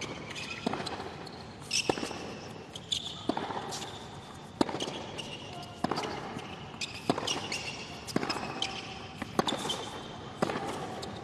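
Tennis rally on a hard court: racket strokes and ball bounces, a sharp hit about once a second, with high squeaks from the players' shoes between hits.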